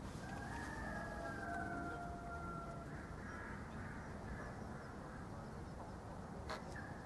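A crow's long, drawn-out call, about two seconds long and sliding slightly down in pitch, over a steady low wind rumble; a single sharp click near the end.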